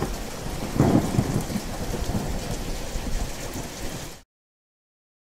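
Thunder rumbling over steady rain, loudest about a second in, cutting off abruptly about four seconds in.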